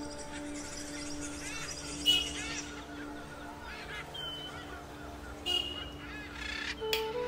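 Honking bird calls, several short calls that rise and fall in pitch, loudest about two seconds in and again about five and a half seconds in, over soft background music with long held low notes.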